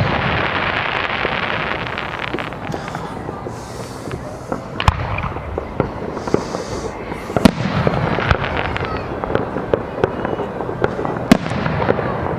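Aerial fireworks display: a dense crackling hiss at the start, then a string of sharp shell bursts and pops, the loudest about five, seven and a half and eleven seconds in.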